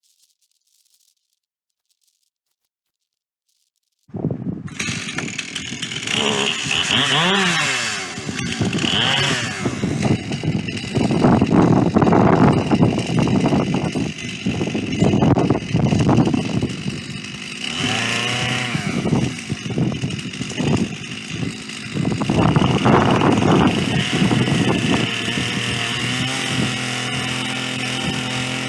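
Chainsaw on a chainsaw mill attachment running while milling a white pine log. It cuts in suddenly about four seconds in, its engine pitch rising and falling several times, and it runs steadier near the end.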